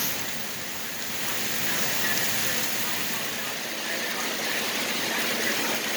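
Heavy thunderstorm rain pouring down, a steady hiss that grows a little louder about two seconds in.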